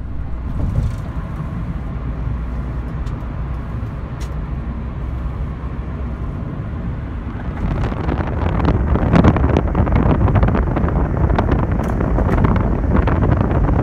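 Steady low road and engine rumble inside a moving taxi. About halfway through it grows louder, with rushing wind noise over the microphone.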